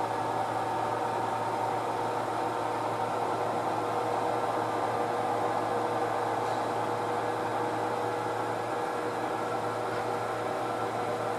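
HO scale model diesel locomotives shoving a string of freight cars along the yard track: a steady mechanical hum that swells slightly in the middle.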